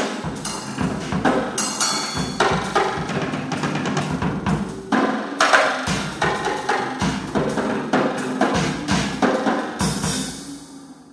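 Drum kit played in a dense, irregular flurry of strikes in experimental electro-acoustic music, over a steady low tone from the electronics. Near the end the strikes stop and the sound fades away.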